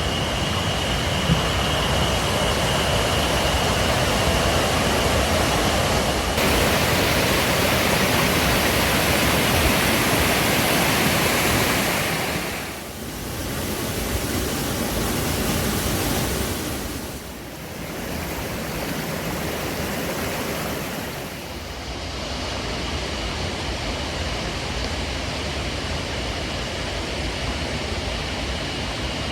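Steady rush of falling water from a waterfall, dipping briefly three times.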